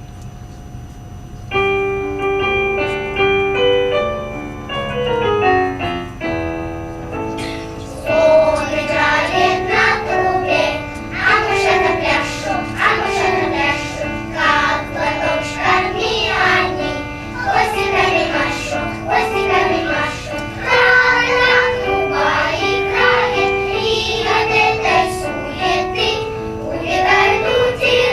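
A piano introduction begins about a second and a half in, and about eight seconds in a children's choir starts singing over the piano accompaniment.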